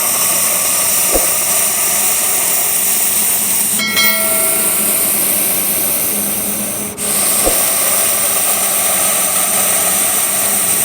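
Russell's viper hissing loudly and continuously, a pressure-cooker-like hiss that breaks off briefly twice, about four and seven seconds in. This is the snake's defensive warning.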